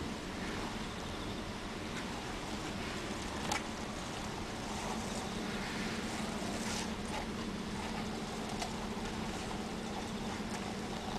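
Steady low hum and hiss inside a car sitting still in a traffic jam, its engine idling, with one short click about three and a half seconds in.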